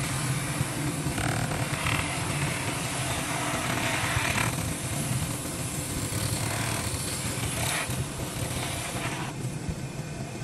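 A machine running with a steady low hum, with several bursts of hissing scraping a couple of seconds apart that drop away near the end.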